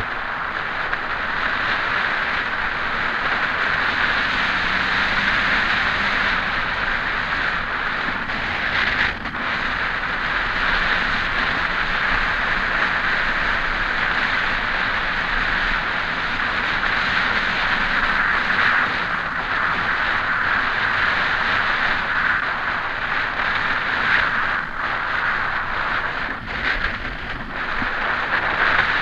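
Steady rush of wind over a bike-mounted action camera's microphone, mixed with bicycle tyre noise on asphalt, during a fast downhill ride, with brief dips about nine seconds in and near the end.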